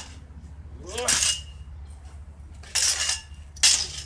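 Metal swords, which the fighters take to be aluminum, clashing blade on blade three times, each strike a sharp clang, two of them with a short high ring.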